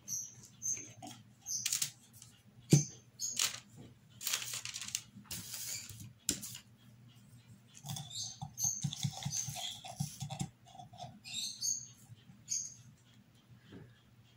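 Scattered clicks, rustles and short high squeaks of a small plastic jar of black paint being handled: the cap twisted off, then a brush dipped and worked in the jar.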